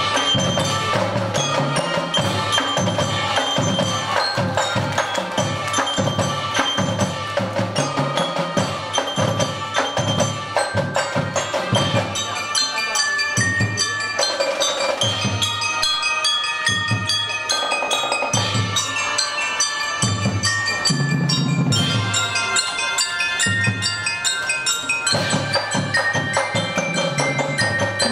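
Junior marching band playing a concert piece: a melody on mallet percussion with struck, ringing notes over drums. The low drums drop back for stretches in the middle and come back in full near the end.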